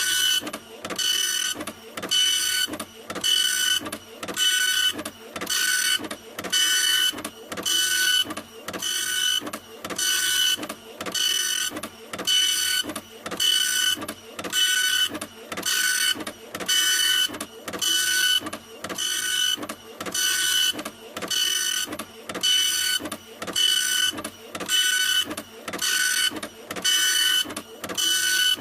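Printer running continuously, its print mechanism going in an even rhythm of about one stroke a second, each stroke carrying a whining motor tone over a mechanical whir.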